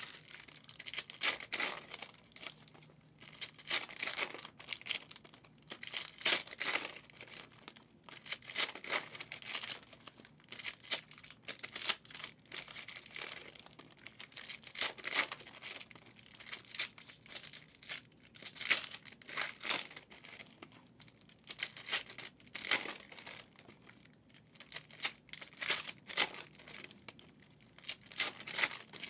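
Plastic wrappers of football trading-card hobby packs being torn open and crinkled, in irregular bursts of rustling every second or two.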